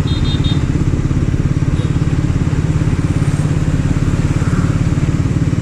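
Triumph Speed 400's single-cylinder engine and exhaust running at a steady speed while riding, an even, rapidly pulsing low note.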